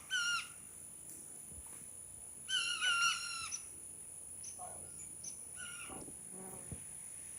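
A bird giving short, clear calls: one at the start, a louder run of calls about two and a half to three and a half seconds in, then fainter calls.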